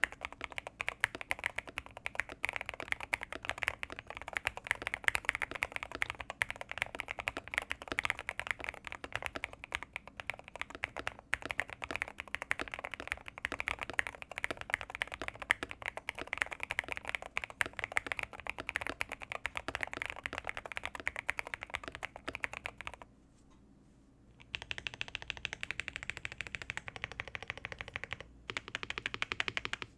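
Custom mechanical keyboard being typed on quickly and continuously, a dense run of keystroke clacks. About three-quarters of the way through, the typing breaks off for about a second and a half, then resumes.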